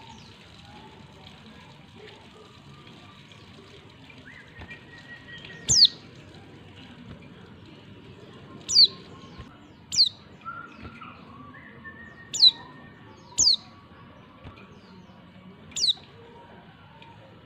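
Female white-eye (pleci) calling: six short, sharp, high notes that each fall quickly in pitch, one to three seconds apart, with faint whistles and chirps between them. The calls are meant as a lure to make male white-eyes answer.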